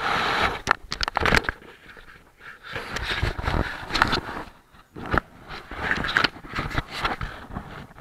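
Handling noise from a small action camera: irregular rubbing, scraping and knocks against its body and microphone as it is turned over and moved about.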